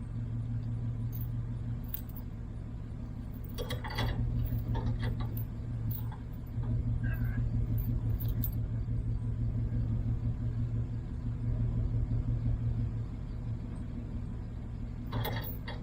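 Truck engine running steadily at low speed, getting a little louder about six and a half seconds in as the truck is moved, with a couple of brief clicks.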